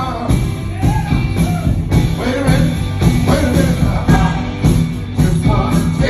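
A live band playing: electric guitar, bass and drums with a singer over a steady beat, heard from the audience floor of a club.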